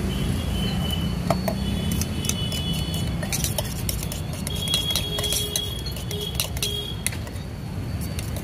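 Steel spoon scraping and clinking against a stainless steel bowl while stirring a sandwich filling: a run of quick clinks with a bright metallic ring, over a steady low rumble.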